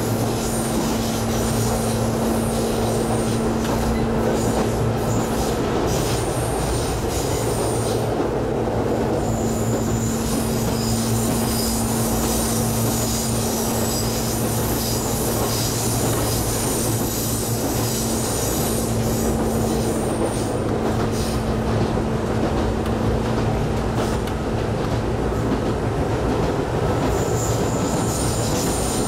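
Ex-Keio 5000 series electric railcar running at speed, heard from inside the car: a steady rumble of wheels on rail with a constant low hum and a faint high whine.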